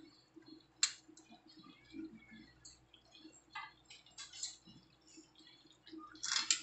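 Faint crackling and popping of vegetables frying in a steel kadhai, with a sharp click about a second in. Near the end a steel spoon starts scraping through the pan as the spices are stirred in.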